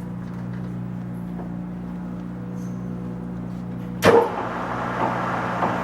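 Bridgeport Romi lathe running in gear range 1 at 90 RPM, a steady gear-driven hum. About four seconds in comes a single sharp clunk, after which the machine runs on with a louder, noisier whir.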